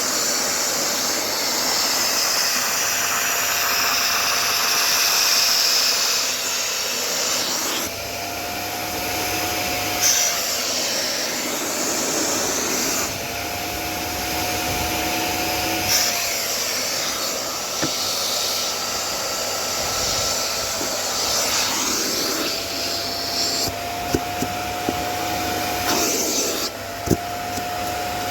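VEVOR wet/dry vacuum running steadily with a high motor whine, its rush of air changing every few seconds as the nozzle is worked over a child seat's upholstery. A few light clicks near the end.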